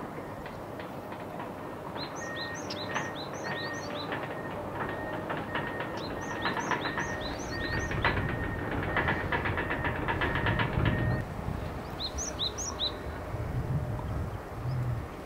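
Small birds calling in three quick runs of short, high chirps, over the rising rumble of a passing train.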